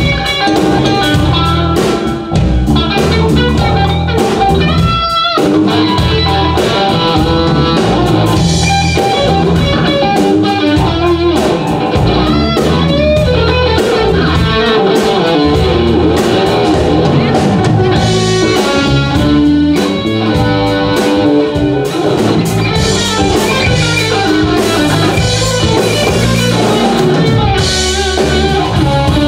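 Live jazz-rock fusion trio playing: electric guitar plays a line of quick single notes over bass guitar and drum kit.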